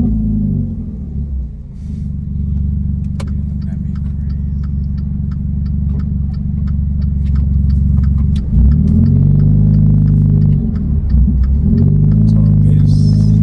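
Straight-piped Dodge Dart's exhaust: the engine note drops as the car slows, settles into a low steady drone with light regular ticking over it, then rises again about eight seconds in as the car pulls away.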